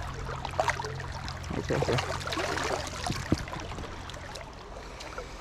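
River water flowing steadily, with a splashy burst of water about one and a half seconds in and a couple of short sharp knocks.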